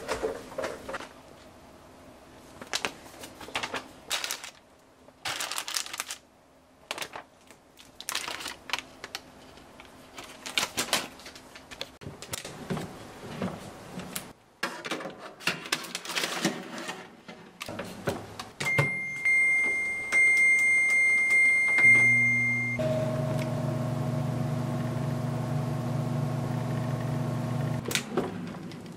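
Countertop air fryer oven being loaded and started: scattered clicks and clatter from the wire basket, rack and door, then a high electronic tone from the control panel held for about four seconds. After that the fan and heater run with a steady hum, which stops a second or so before the end.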